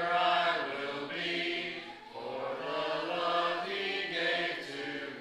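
Congregation singing a hymn a cappella, many voices together in slow, held notes.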